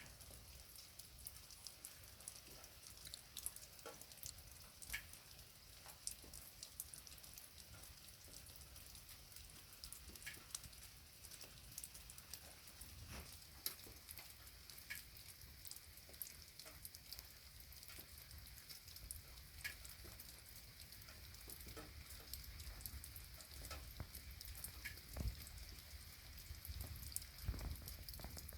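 Rain falling steadily, a soft hiss with many individual drops ticking sharply on a hard surface, and a couple of heavier low drips thudding near the end.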